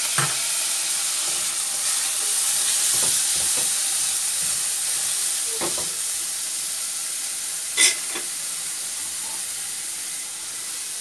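Shredded chicken and green peas sizzling in a little oil in a nonstick frying pan while a spatula stirs them, scraping and knocking against the pan. The loudest sound is one sharp knock about eight seconds in.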